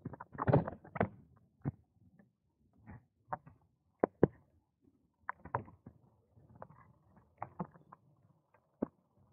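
A bicycle and its mounted camera rattling as it rolls over a paved path: irregular sharp clicks and knocks, about one or two a second, with little sound between them.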